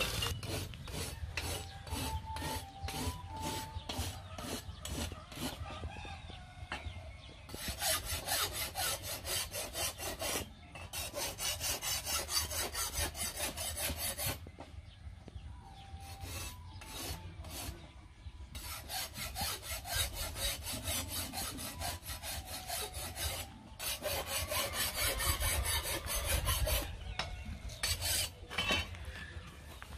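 Hand file rasping along the edge of a steel cleaver blade in quick, even strokes, about two to three a second, sharpening it by hand; the runs of strokes stop for short pauses several times.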